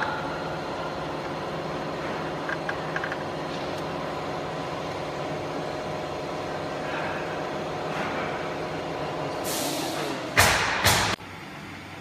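Steady hum of running workshop machinery, with several even tones. About ten seconds in, a few loud hissing bursts follow in quick succession and stop within about a second and a half.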